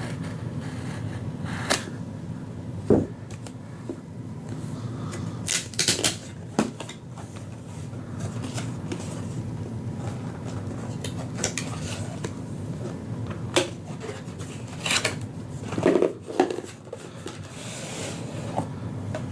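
Cardboard gift box being opened and handled: scattered taps, clicks and short scrapes of cardboard, with a denser cluster of rustling and knocks about sixteen seconds in, over a steady low hum.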